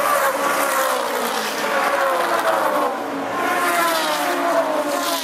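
Historic touring race cars passing at speed, their engine notes falling in pitch as they go by. A second car's engine sweeps past and down in pitch about three seconds in.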